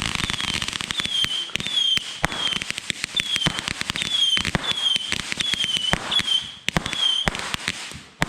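Fireworks going off: a dense run of sharp pops and crackles with a short, high, slightly falling whistle repeating about twice a second. The sound thins out briefly about six and a half seconds in and again near the end.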